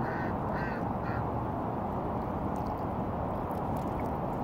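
Steady outdoor background noise at the water's edge, with three short high calls in the first second or so.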